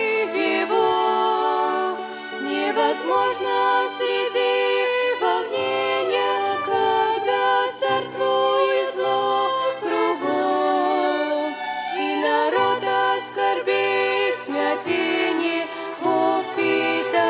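Violin ensemble playing a church song in sustained, bowed chords that change every second or two.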